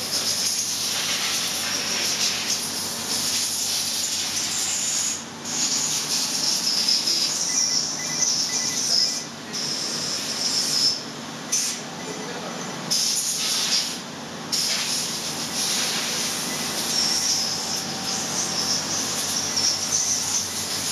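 Steady hiss of machine-shop air and equipment noise around a vertical CNC machining center, dropping away briefly a few times.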